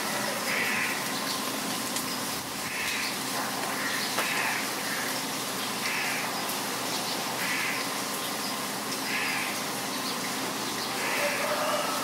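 Heavy rain falling steadily, with a bird repeating short calls about every second and a half over it.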